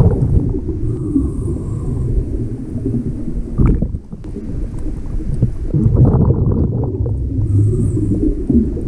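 Muffled underwater rumble of water against a camera housing, with scattered knocks and clicks from handling the gear.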